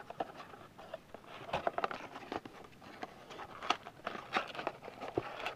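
Trading card packs in plastic wrappers being handled and pulled from a cardboard blaster box, giving irregular crinkles, rustles and small clicks.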